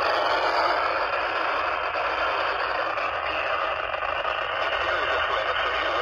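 Steady hiss of static from a handheld radio's small speaker, with no voice coming through.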